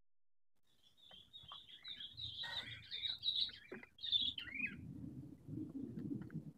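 Small birds chirping in a quick, twittering run of high notes with short rising and falling glides, starting about a second in and stopping near the two-thirds mark. A low, uneven rumbling noise takes over for the last couple of seconds.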